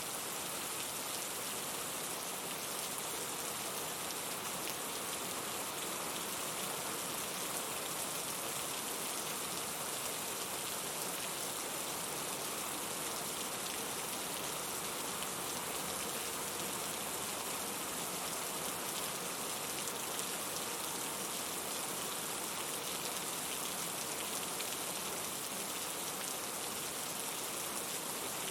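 Steady rain falling: an even, unbroken hiss of many fine drops that keeps the same level throughout.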